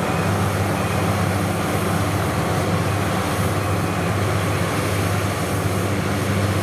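Two rice combine harvesters, a DC60 following a DC1115, running while cutting and threshing rice: a steady engine drone under a broad, even hiss of the cutting and threshing machinery.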